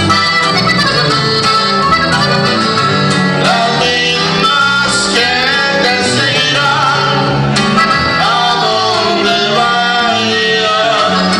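Norteño trio playing live: a button accordion carries the melody over a strummed guitar and an electric bass keeping a steady bass line.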